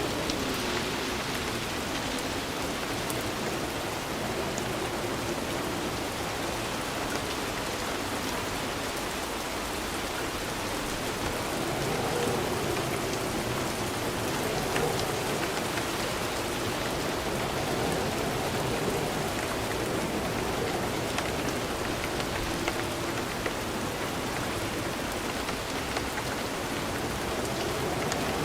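Steady rain falling on surfaces, with individual drops ticking now and then over the even wash and the level swelling gently a few times.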